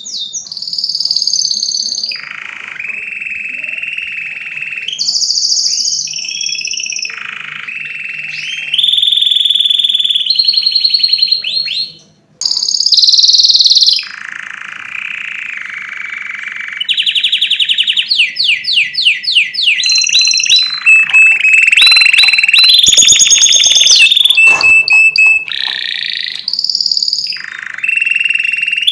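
Domestic canary singing: a long, loud run of rapid trills and rolling phrases that shift in pitch and speed every second or two, with one brief break about twelve seconds in.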